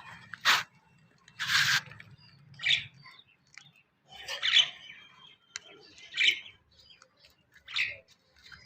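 A bird calling: a series of short, harsh calls, about one every second and a half.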